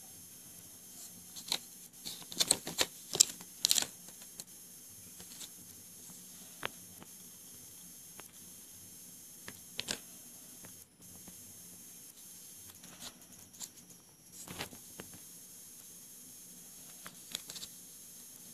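Handling noise from a new Samsung Galaxy Golden flip phone still in its plastic protective film: scattered crinkles, taps and clicks, with the loudest cluster about two to four seconds in.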